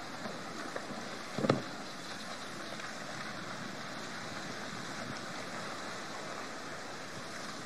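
Steady rush of wind and sea on the microphone, with one sudden loud thump about a second and a half in.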